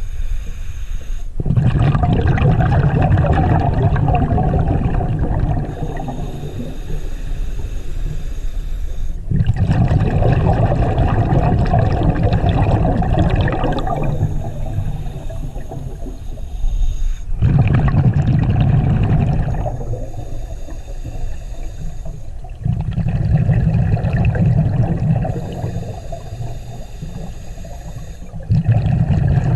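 Scuba diver breathing through a regulator underwater: loud rumbling bursts of exhaled bubbles alternate with quieter hissing inhalations, five exhalations in a slow, even rhythm of roughly one breath every 6 to 8 seconds.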